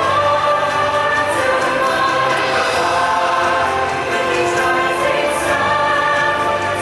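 Choir singing long, held chords over orchestral music.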